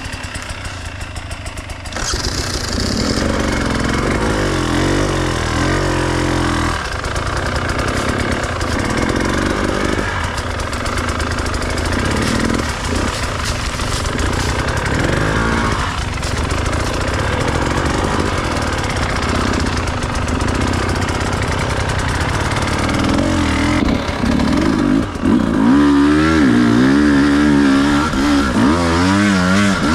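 Enduro dirt bike engine running under load, its revs rising and falling constantly as it rides over rough ground. Quieter for the first two seconds, then louder, with quick, hard revving near the end.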